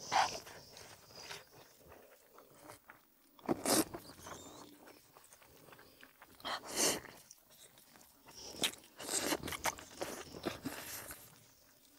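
A person biting and chewing braised oxtail, gnawing the meat off the bone. Loud bites come about four and seven seconds in, with a quick run of them near the end.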